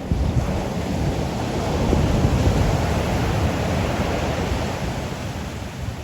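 Ocean surf: a wave breaks and washes in, swelling to its loudest about two seconds in and easing off toward the end.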